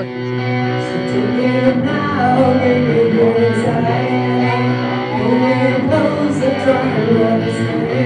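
All-female rock band playing live, with electric guitars and drums. A woman's sung melody comes in about a second and a half in.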